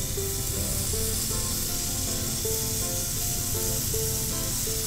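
Prawns sizzling in hot olive oil and butter in a pan, a steady hiss as they are laid in one at a time, under background music playing a melody of short held notes.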